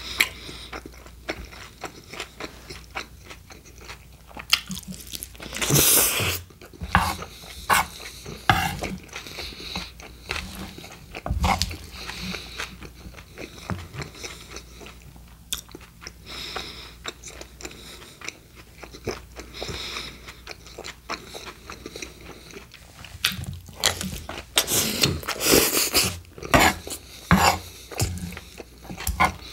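Close-miked chewing of a mouthful of steak burrito filling with rice and lettuce, a steady run of short clicks and crunches. It gets louder for a couple of seconds about six seconds in, and again for several seconds near the end.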